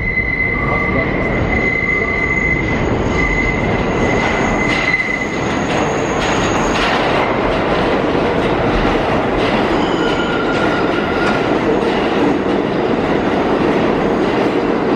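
New York City subway train running with a steady rumble of wheels on track. High-pitched wheel squeals sound during the first several seconds and again briefly around ten seconds in.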